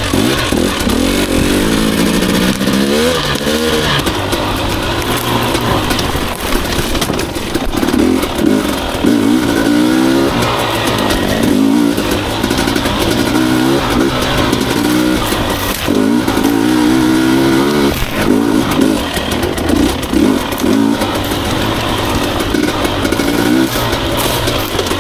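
Husqvarna TE 250i two-stroke dirt bike engine revving up and down again and again as it is ridden through rough, rutted trail, the pitch rising and falling every second or two.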